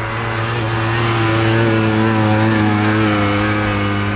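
Vintage snowmobile's two-stroke engine running at high revs, getting louder to a peak about two seconds in and then easing off, its pitch sagging slightly near the end.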